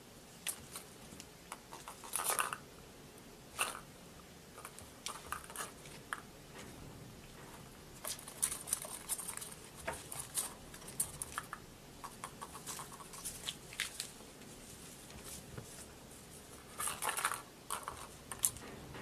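A kitten playing with toys: irregular rustles, scratches and small clicks as it paws and bites at a plastic ball-track toy and a feather lure on a string, with a few louder rustling bursts.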